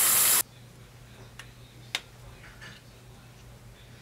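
Bathroom sink faucet running water over a toothbrush, shut off sharply about half a second in. After that there are only a few faint clicks.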